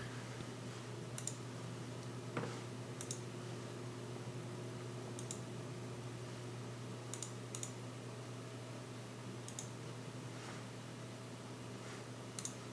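Faint, sparse clicks of metal tweezers picking up and setting small parts into a quartz watch movement, about ten in all, over a steady low hum.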